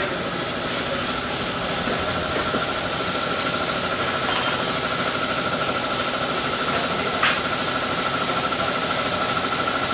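Motorcycle engine idling steadily, with a brief high chirp about halfway through and a light click later.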